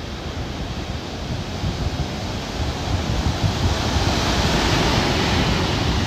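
Sea surf washing in with wind buffeting the microphone. It grows louder over the first few seconds.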